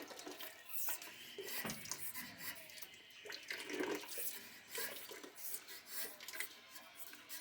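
Hot water draining out of a gas steam boiler's opened sight-glass fitting, trickling and splashing unevenly.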